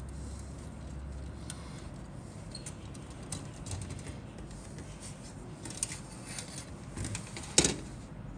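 Hard plastic model-kit sprue being handled and laid on a cutting mat: light scattered clicks and rustles, then one sharp clack near the end as it is set down.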